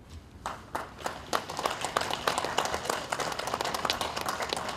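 A small group of people clapping: a few scattered claps about half a second in, building into steady applause.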